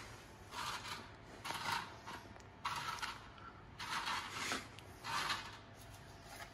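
Square crackers being set down and slid into place on a baking tray: about five short, dry scraping sounds in a row.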